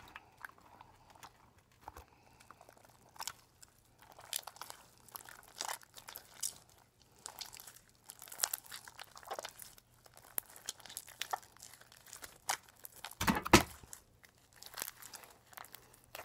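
Homemade glue slime being squeezed and kneaded by hand in a plastic tub, giving irregular sticky, wet squelching and crackling. A louder thump comes about thirteen seconds in.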